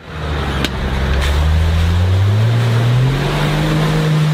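Engine of a lifted Toyota off-road SUV on giant mud tyres revving up, its pitch rising steadily for about three seconds and then holding, over a steady rush of tyres churning through mud.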